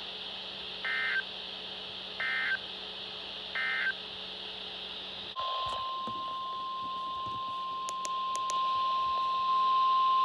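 Three short bursts of warbling EAS data tones about a second and a half apart, the end-of-message codes closing a weather alert. About five seconds in, a single steady tone near 1 kHz starts and holds, growing louder near the end: the weather radio's 1050 Hz alert tone, heralding the next warning.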